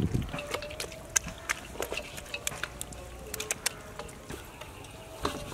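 Wet squelching and clicking of hands kneading marinade into whole rat carcasses in a stainless steel bowl, as irregular small wet smacks.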